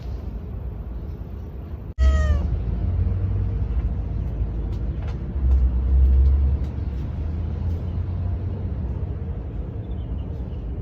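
A domestic cat gives one short meow that falls slightly in pitch about two seconds in. A steady low rumble of background noise runs underneath and swells briefly in the middle.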